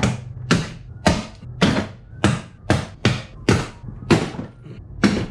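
Plastic access-cab door trim panel being worked loose from its retaining clips: a series of sharp knocks and snaps, about two a second, as the panel is pulled and pushed against the door.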